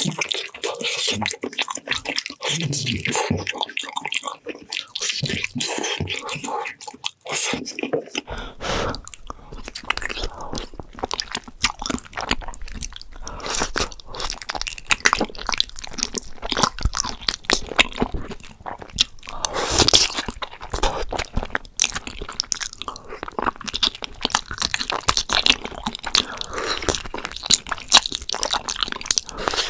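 Close-miked eating sounds: biting and chewing spicy braised beef feet, with dense, irregular sharp clicks and crackles. The sound changes about eight seconds in, when a low, steady undertone joins.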